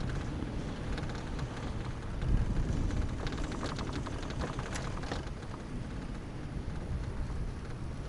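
Wind rumbling on the microphone and the low running rumble of a high-speed quad chairlift in motion. A run of faint rattling clicks comes a few seconds in.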